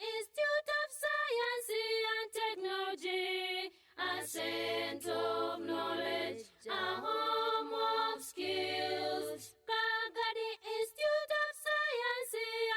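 Unaccompanied voices singing in harmony. A fuller section with lower voices comes in about four seconds in and drops away near ten seconds, leaving the higher voices.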